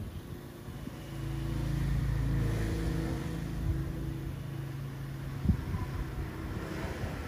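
A low, steady motor hum with a deep rumble, swelling in about a second in and stopping with a short knock about five and a half seconds in.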